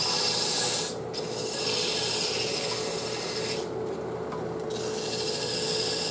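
120-grit sandpaper rubbing on a slowly spinning pine spindle on a JET wood lathe: a steady hiss that stops briefly twice, over the lathe's steady hum.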